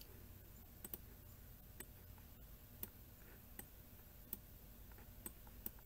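Computer mouse buttons clicking now and then, about eight sharp, irregularly spaced clicks over a faint low hum.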